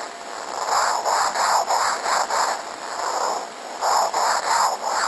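Male Asian corn borer moth's courtship song, made by rubbing specialised wing scales against the thorax: an ultrasonic sound slowed down so it can be heard. It comes as a rapid train of scratchy rasping pulses, about three a second, with a brief lull midway.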